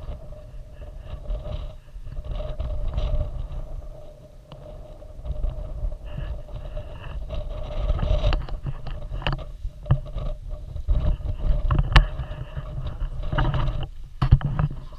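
Rustling and scraping of a jacket and a full-face respirator's straps as the gas mask is pulled on, over a low rumble and a faint steady hum. Several sharp clicks are scattered through it, the sharpest about twelve seconds in.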